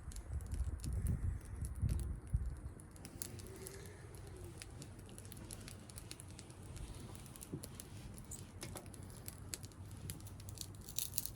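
Small wood-and-pellet fire in a hobo stove, crackling with scattered sharp snaps of burning wood, the snaps coming closer together near the end. There is a low rumble over the first two seconds or so.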